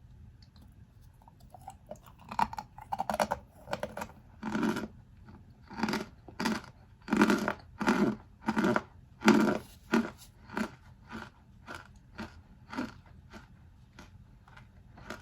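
Packed cornstarch mix in a box being crunched, a run of soft crunches about two a second. They start about two seconds in and grow fainter toward the end.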